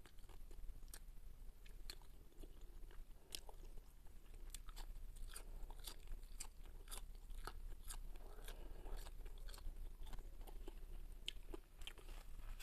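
A person chewing fried carp and green onion with the mouth close to the microphone: many small crisp crunches and wet mouth clicks, irregularly spaced.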